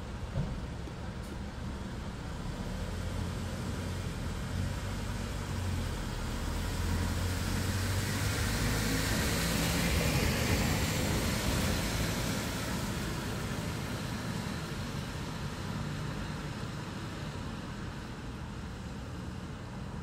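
A road vehicle passing by, its noise swelling to a peak about ten seconds in and then fading, over a steady low hum of traffic.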